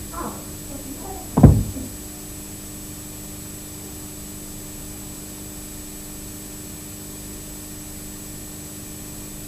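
A door slamming shut once, about a second and a half in, followed by a steady low hum.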